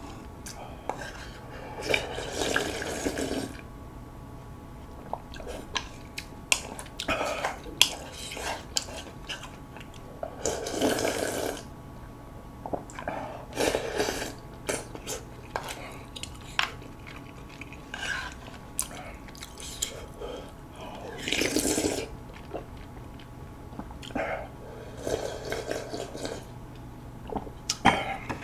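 Close-miked eating sounds: a wooden spoon and chopsticks clicking and scraping against a black bowl, with several longer slurps of broth a few seconds apart.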